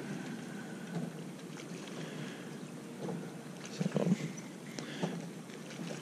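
Steady low background rush on an open fishing boat, light wind and water against the hull, with no motor tone heard. One short spoken word cuts in a little past the middle.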